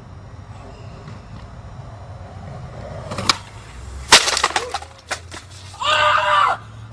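A sharp knock, then a louder crack with a short clatter about four seconds in, followed by a person crying out near the end.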